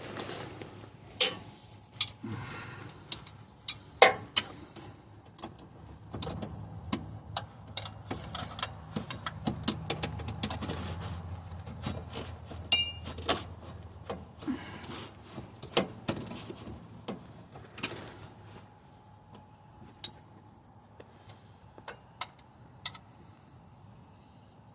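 Irregular metallic clicks and clinks of a wrench and metal hardware being handled, at about one to two sharp knocks a second, thinning to a few faint ticks in the last several seconds.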